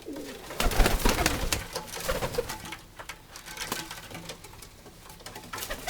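Domestic pigeons cooing in a loft, with a loud burst of scuffling and clicking about half a second in that lasts a couple of seconds.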